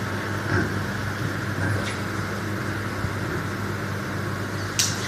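Electric hair clipper buzzing steadily as it is worked over a comb, cutting hair at the nape. A short sharp click near the end.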